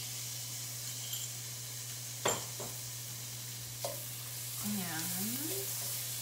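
Garlic, shallots and carrots sizzling in a stainless steel sauté pan as they are stirred with a wooden spatula, the sizzle growing a little louder once stirring starts. A single sharp knock about two seconds in.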